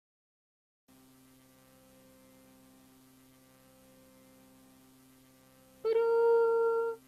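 Silence, then a faint steady hum. About six seconds in, a high-pitched puppet voice holds one steady note for about a second.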